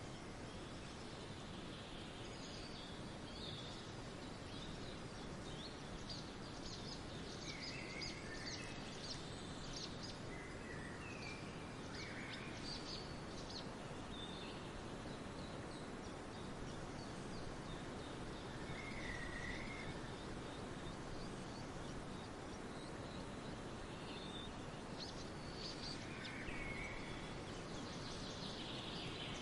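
Several songbirds chirping and trilling over a steady hiss of forest background noise, with bursts of short, high calls scattered throughout.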